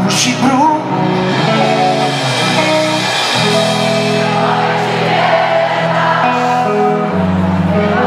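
Rock band playing live through a stadium PA, with singing, electric guitar and drums; held chords change every second or two.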